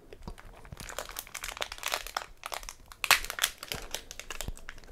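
Metallised foil wrapper of a Pokémon TCG Sword & Shield booster pack crinkling and crackling in the hands in irregular bursts as fingers work at its crimped seal to tear it open.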